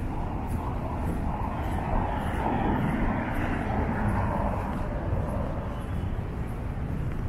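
Street traffic running steadily, with one vehicle swelling louder as it passes about two to five seconds in.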